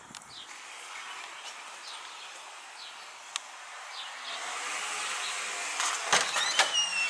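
Steady outdoor background noise, then about six seconds in a few sharp metallic clicks and clunks as a key works a front door's deadbolt lock.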